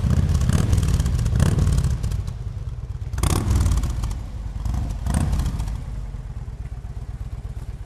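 Motorcycle engine running with a steady low pulse, revved in three short blips.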